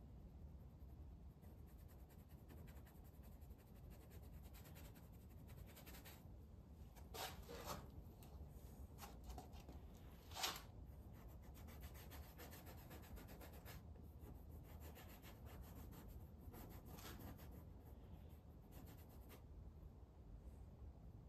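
Paintbrush strokes scratching faintly over oil paint on a stretched, gesso-primed canvas, many short strokes in a row, with a few louder scrapes about seven and ten seconds in.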